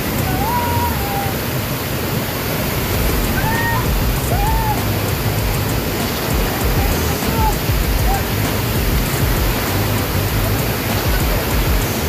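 Waterfall crashing into its plunge pool: a loud, steady rush of falling water with no let-up. A few brief, faint higher-pitched calls sound over it in the first eight seconds.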